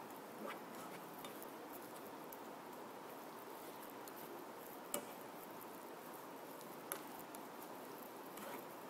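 Gorgonzola melting in hot margarine in a non-stick frying pan, with a faint steady sizzle. A slotted nylon spatula stirs it and taps the pan a few times, sharpest about five and seven seconds in.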